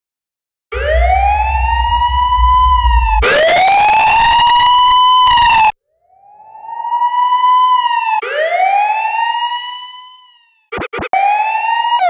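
Police car siren sound effect, heavily edited. A brief silence is followed by a sudden loud wail with a booming bass boost that turns harshly distorted about three seconds in and cuts off abruptly. The siren then fades in again, wails twice and fades out, and a few quick chopped fragments come near the end.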